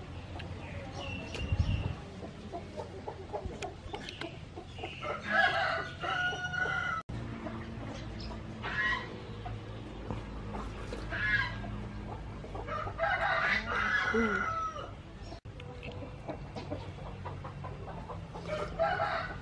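Domestic chickens calling and a rooster crowing a few times, with shorter clucks between the crows.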